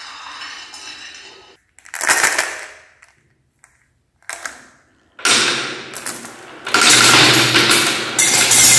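Glass marbles clinking in a few short separate knocks with silent gaps between, then many marbles rattling in a dense, rapid clatter that starts about five seconds in and grows louder near the end.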